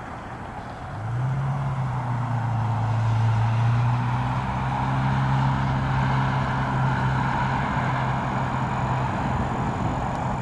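A motor vehicle's engine running with a steady low hum that swells in about a second in and stops near the end, over a broad rushing background noise.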